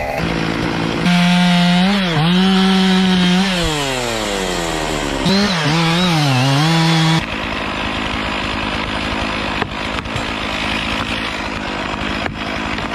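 Two-stroke chainsaw cutting wood, its engine note dropping as the chain bites and climbing again several times. About seven seconds in it gives way to a steadier, rougher sawing noise.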